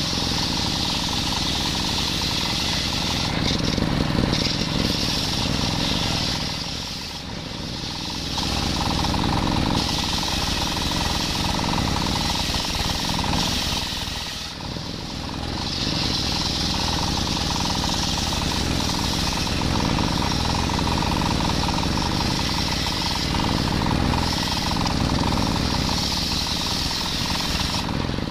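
Large circular saw blade, belt-driven by a stationary engine, ripping a coconut palm log lengthwise, with the engine running steadily under the cut. The cutting noise eases off briefly about 7 and 14 seconds in as the log is pushed on, then picks up again.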